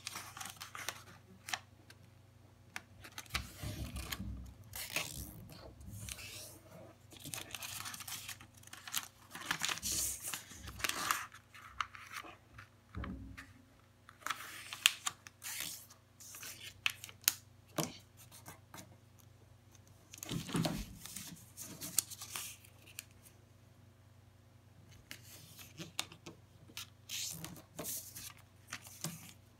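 Paper being folded and creased by hand on a wooden table: irregular rustling and swishing with sharp strokes as the folds are pressed flat, and a few dull thumps.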